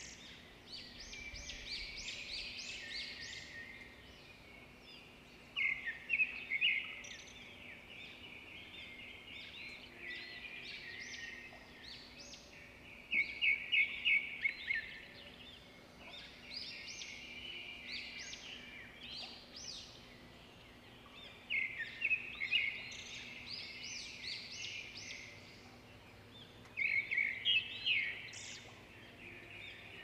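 Songbirds chirping, with a loud cluster of rapid high chirps every six to eight seconds over steady lighter chatter.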